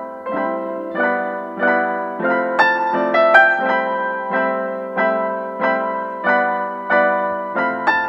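Background piano music: a gentle tune with a note or chord struck about every half second, each ringing and fading away.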